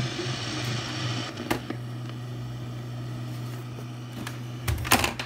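A steady low hum under a few clicks and knocks, the loudest pair just before the end: handling noise from a phone camera being moved.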